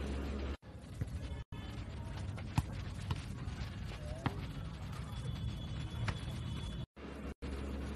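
Outdoor volleyball game: a few sharp knocks of the ball being struck, with distant players' voices. A steady low hum sits at the start and again near the end.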